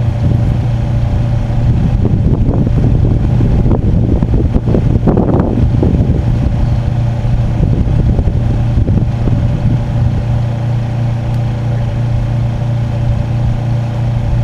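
A steady low engine hum holding one pitch, with irregular rustling and handling noise over it in the middle.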